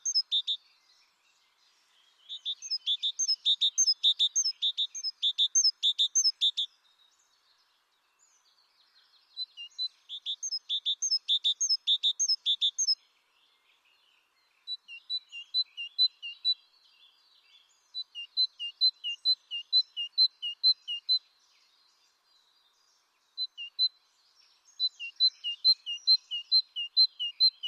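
A songbird chirping in rapid runs of short, high notes, about three a second, in bouts of a few seconds with silent pauses between them.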